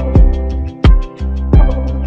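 Background music with a steady beat: a deep kick drum about three times every two seconds, under sustained bass notes and chords.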